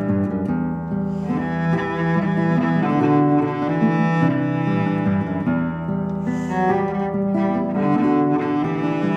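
Cello bowing sustained low notes, with classical guitar, in a chamber quartet of classical guitar, two violins and cello.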